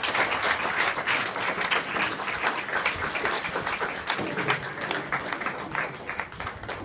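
Audience applauding, many hands clapping together; the applause thins out near the end.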